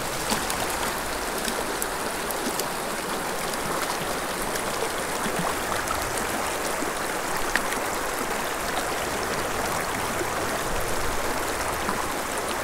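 Small mountain creek flowing, a steady rush of running water.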